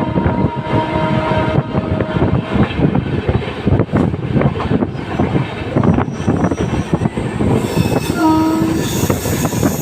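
LHB passenger coach running on the rails, a continuous rumble with rapid wheel clicks. A locomotive horn sounds a steady tone at the start and stops about a second and a half in. A second, short horn blast comes near the end.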